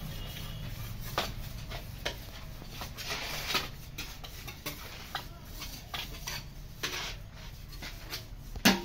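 Irregular scrapes and taps of a hand trowel working a freshly cast cement pipe, with a louder knock near the end.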